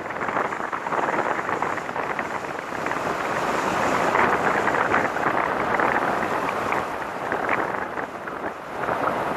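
Wind rushing and buffeting over a microphone mounted on the outside of a moving car, mixed with the car's road noise. It swells louder midway and dips briefly near the end.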